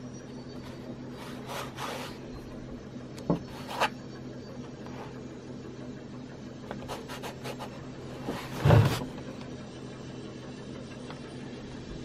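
Flat paintbrush scrubbing paint onto textured canvas: a handful of short scratchy strokes, the loudest near three-quarters through with a low thud, over a steady low hum.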